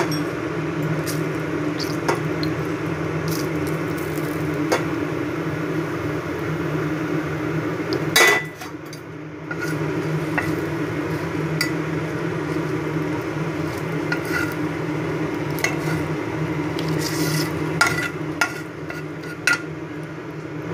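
Bay leaf, dried red chillies and nigella (black cumin) seeds sizzling in hot mustard oil in a wok, over a steady low hum. A metal spatula clicks against the pan now and then, loudest about eight seconds in.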